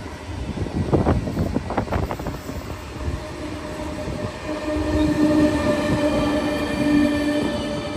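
High-speed train running on the line: a clatter of knocks in the first couple of seconds, then a steady whine with several tones that builds from about three seconds in.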